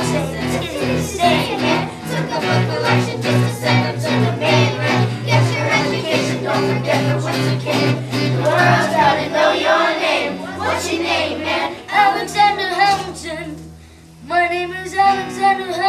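Children's voices delivering fast, rhythmic sung-rapped lyrics of a musical-theatre number. Acoustic guitar and upright bass accompany them, the bass holding low notes. The voices drop out briefly near the end, then come back.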